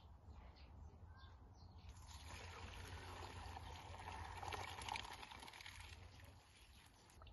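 Soaked rice and its milky water poured from a pot into a metal colander, the water splashing and draining through. The pour starts about two seconds in, is loudest a little before the end, and tails off near the end.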